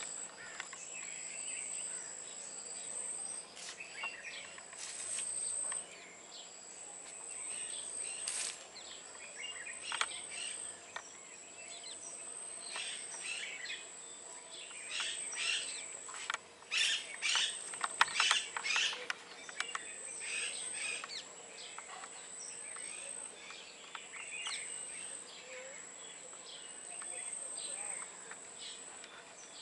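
Birds chirping and calling, busiest around the middle, over a high, steady insect buzz that comes in long repeated pulses.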